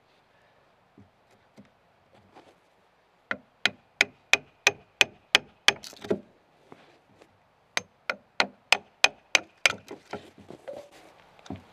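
A steel hammer driving a chisel into a log, cutting out a mortice for a new corner cog-head. There are two quick runs of sharp, ringing blows at about three a second, with a few lighter taps between and after.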